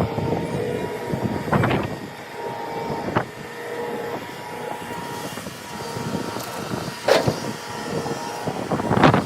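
Heavy construction machinery running steadily, with a sharp clank every couple of seconds.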